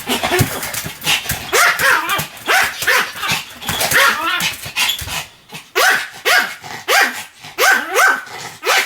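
Pomeranian barking over and over in short, high yappy barks, about two a second, with a brief pause about five seconds in.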